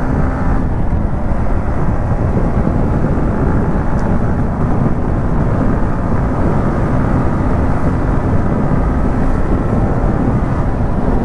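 Yamaha MT-15 motorcycle riding at speed: steady wind rush on the rider's camera microphone over the drone of its single-cylinder engine.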